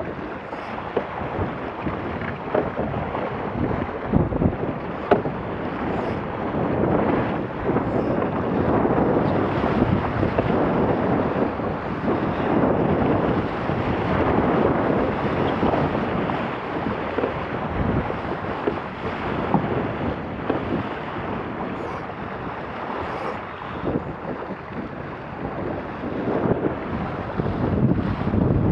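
Laser sailing dinghy moving fast at about 6 to 8 knots: a steady rush of water and spray along the hull, mixed with wind buffeting the microphone. There are occasional short sharp knocks.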